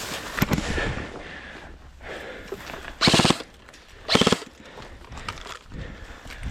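Airsoft gun firing two short automatic bursts, a rapid string of shots each, about a second apart near the middle.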